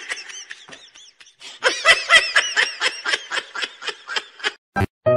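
High-pitched laughter: a string of short ha-ha pulses, a few scattered at first, then a fast run of about four or five a second for about three seconds, ending in a sharp click.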